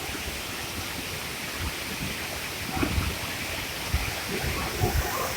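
Steady rush of flowing water, an even hiss, with a few short low thumps on the microphone around the middle and near the end.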